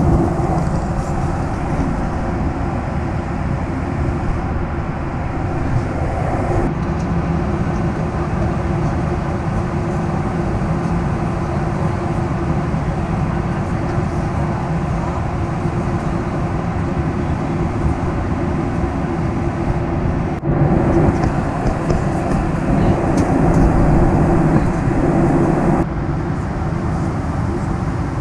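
Steady cabin noise of a Boeing 737-800 at altitude, heard inside the cabin at a window seat: the rush of airflow and the CFM56 turbofan engines, with a low steady hum underneath. Its level and tone jump abruptly three times, about 7, 20 and 26 seconds in.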